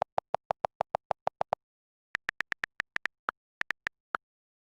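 Short electronic alarm beeps. A fast, regular train of lower beeps, about seven a second, stops about a second and a half in. After a half-second pause comes an irregular series of higher-pitched beeps that ends about four seconds in.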